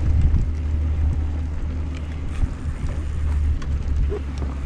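Wind rumbling over an action camera's microphone as a mountain bike rolls slowly along a dirt trail, with scattered light clicks.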